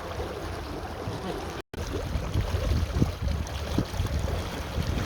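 Wind rumbling on the microphone and water washing along the hull of a sailboat under way. The sound cuts out for a moment about a second and a half in, then returns a little louder.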